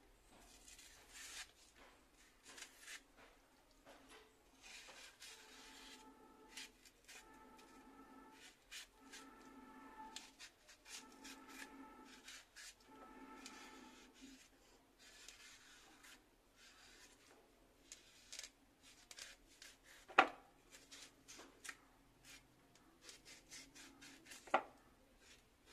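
Kitchen knife stripping the fibrous skin off taro stalks in long strips: faint, repeated scraping and rubbing of the blade along the stalk. Two sharp clicks stand out near the end.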